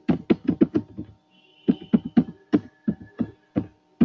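Computer keyboard being typed on: a quick run of key strikes, a short pause about a second in, then another run. A faint steady hum sits underneath.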